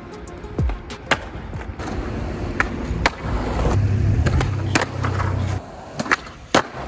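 Skateboard wheels rolling on pavement with a low rumble, broken by several sharp clacks of the board on the ground.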